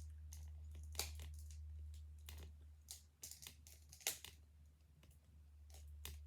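Plastic toy figures being handled: a few scattered light clicks and taps, over a steady low hum.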